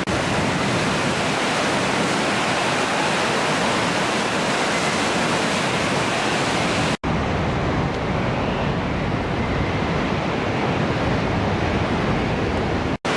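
Loud, steady rushing of water released from Miyagase Dam, pouring down in a tourist discharge. The sound cuts out for an instant twice.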